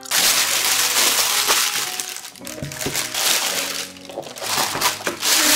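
Thin plastic carrier bag rustling and crinkling loudly as a cardboard takeout box is pulled out of it, in two spells with a lull just past the middle. Light background music plays underneath.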